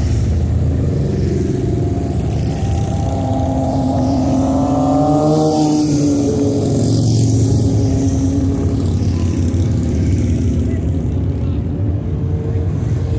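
Motorcycles riding past in a procession, their engines giving a steady rumble; about five seconds in, one engine's note climbs and then drops as it goes by.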